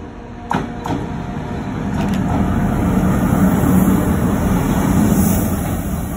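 SNCF BB 75000-class diesel-electric locomotive passing close by at low speed while shunting. Its engine is running, with a low rumble that grows louder as it draws level. Two sharp clicks come about half a second and a second in.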